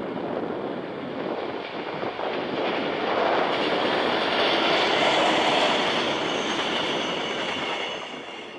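A ZSSK diesel locomotive hauling four passenger coaches passes by on the line, its engine running and its wheels rolling on the rails. The sound builds as the train approaches, is loudest about five to six seconds in, then fades as it draws away.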